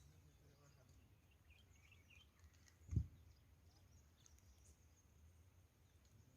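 Near silence: faint outdoor ambience with a few faint bird chirps in the first half and a single low thump about halfway through.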